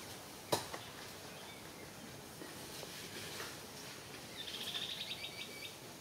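A bird calling in a fast rattling run of quick, high repeated notes for just over a second, starting about four and a half seconds in, over a steady woodland hiss. A single sharp click comes about half a second in.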